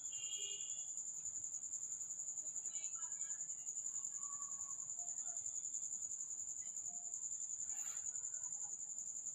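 Steady, high-pitched chirring of crickets with a fast, even pulse.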